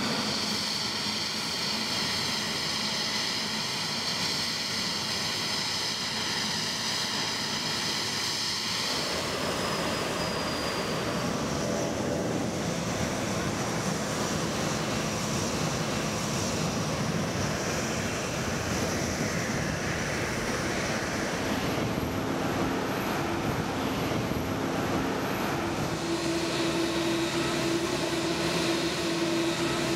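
Boeing 777 jet engines running steadily as the airliners taxi, a whine made of several steady tones. About nine seconds in, the sound cuts to a steady rushing noise around a Boeing 787-9 being pushed back on a wet apron. A steady low hum joins near the end.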